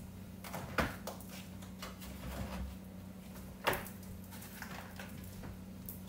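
Kitchenware handled at a bowl of glaze: two light knocks, one just under a second in and one near four seconds, with a few fainter taps, over a low steady hum.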